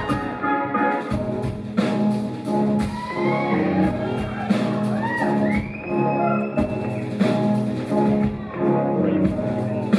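Live band playing an instrumental passage with a steady beat. Pitched sounds slide up and down over it about halfway through.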